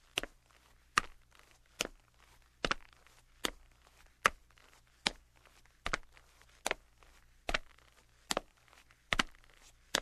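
A man's footsteps walking at a steady, even pace, about one step every 0.8 seconds, each step a sharp click.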